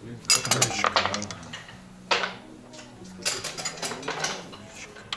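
Backgammon dice thrown and clattering on the board, with checkers clicked into place, in several short bursts of clicks.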